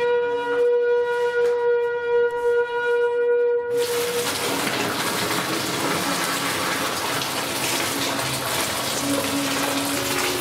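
A steady held tone with overtones for about four seconds, then a loud, even rushing gush as a stream of molten lead pours from a tipped pot into a steel keel cavity.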